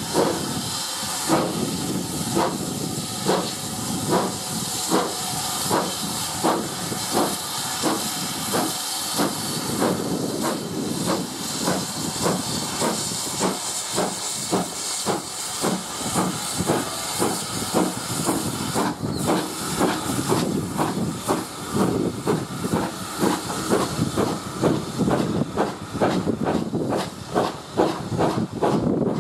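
A steam locomotive passes hauling a train, its exhaust beating in an even rhythm over a steady hiss of steam. Toward the end the coaches roll by, their wheels clicking over the rail joints.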